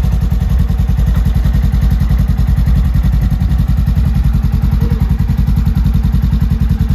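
Polaris General side-by-side's engine running at low speed with a fast, even exhaust pulse as the machine reverses down the trailer ramps.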